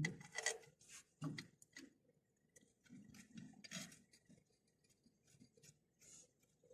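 Faint, intermittent scrapes and clicks, a dozen or so short sharp sounds spread unevenly, the loudest in the first second.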